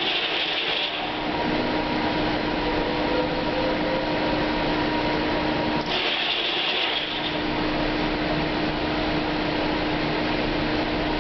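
Corn grain dryer running with a steady rushing noise and hum, with a brief higher hiss at the start and again about halfway through, repeating about every six seconds.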